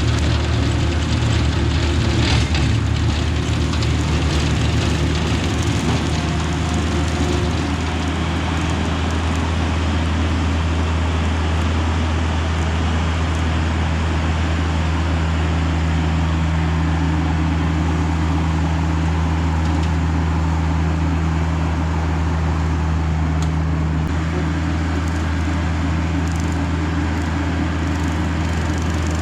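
Tractor engine running at a steady speed, a loud constant low hum with a small change in engine speed about seven seconds in.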